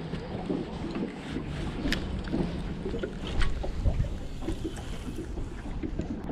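Small boat under way: its outboard motor runs while water rushes and slaps against the hull, with wind buffeting the microphone.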